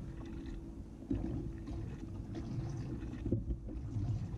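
Low, steady rumble of water and wind around a fishing kayak, with a few faint knocks from the rod and reel being worked while fighting a fish.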